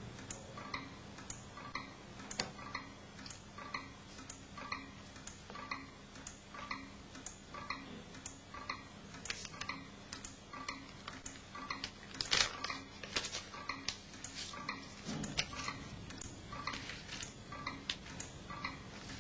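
Clock ticking steadily, about three ticks every two seconds, with a couple of louder clicks about twelve seconds in.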